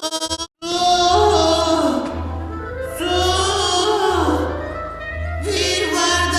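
A cartoon voice line run through a sound effect so that it comes out as operatic-style singing, with long gliding notes over a pulsing bass beat. It starts after a brief cut about half a second in.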